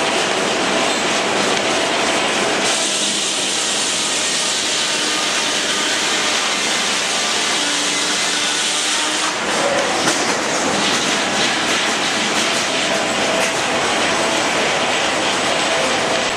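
Twin-cylinder Rumely 36-120 steam traction engine running under load as it drives a sawmill. From about three to nine seconds in, a loud high-pitched rushing sound takes over.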